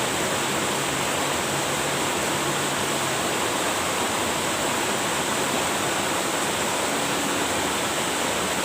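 Steady rushing of flowing stream water, an even wash of noise with no breaks.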